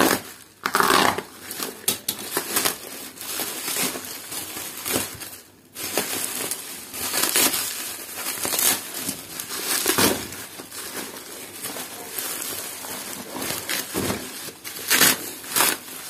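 Plastic courier mailer and bubble wrap being torn open and crumpled by hand: an uneven crinkling and rustling of plastic that goes briefly quiet about five seconds in.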